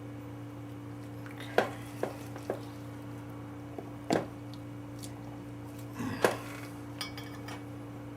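A handful of sharp metal clinks and knocks, spaced a second or two apart, from valve-lapping parts and tools being handled on a workbench, over a steady low hum.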